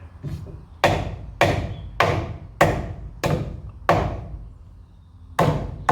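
Hammer blows on the lower end of a wooden 6x6 post, knocking it over to square it up: six strikes about 0.6 s apart, a pause, then one more near the end.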